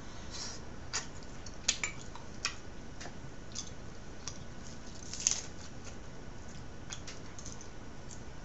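Eating sounds: scattered soft clicks and smacks of mouth and fingers on grilled fish, with a few sharper ticks of a fork on a plate, the sharpest about two and five seconds in, over a steady faint hiss.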